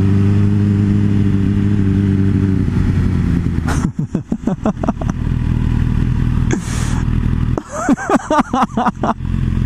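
MV Agusta Brutale motorcycle engine running steadily at a cruise, its pitch easing slightly down over the first few seconds. About four seconds in the sound turns choppy with a run of sharp pops and clatter, and near the end come a few quick rising and falling revs.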